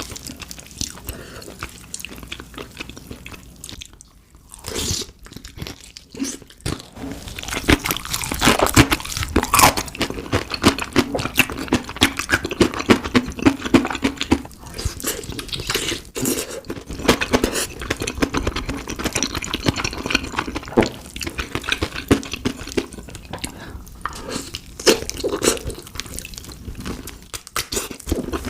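Close-up chewing and biting of crispy fried chicken: dense crunching and crackling of the fried batter, with wet mouth sounds, easing off briefly a few seconds in.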